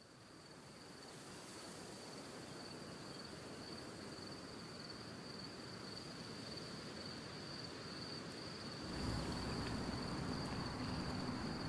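Crickets trilling in one steady high continuous note over a soft outdoor hiss, fading in at the start. About nine seconds in the sound gets louder and a low hum joins it.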